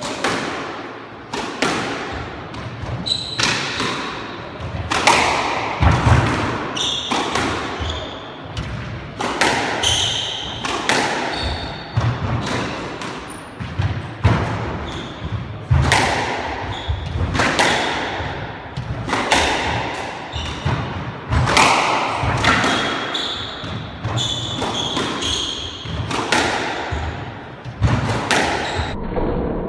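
Squash rally: the ball cracking off rackets and the walls in a long run of sharp hits about a second apart, echoing in the court, with short squeaks of court shoes on the wooden floor between the hits.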